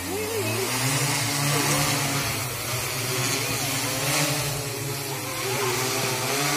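Agricultural spraying drone's rotors spinning up and lifting off, then holding a steady hover: a low motor-and-propeller drone that rises in pitch within the first second, over an even rush of rotor wash.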